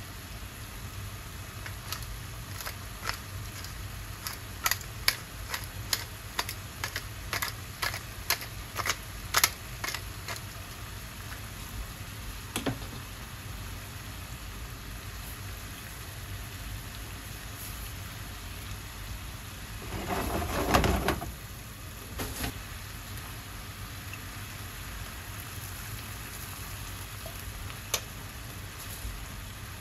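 Wooden pepper mill being twisted over a simmering pan sauce, giving a run of sharp irregular grinding clicks for about eight seconds. Under it runs a steady low hum and a faint simmering hiss. About twenty seconds in comes one louder noise lasting about a second.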